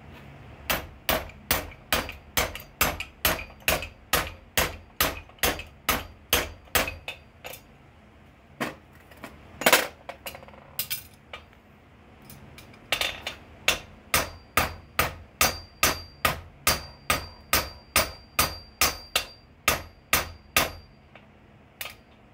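Blacksmith's hammer striking hot steel on an anvil in two steady runs of about two to three blows a second, with a few scattered blows between them, one of them the loudest. At the start the hammer drives a punch into the glowing bar; in the second run it strikes the work directly, with a high ringing tone carrying through the blows.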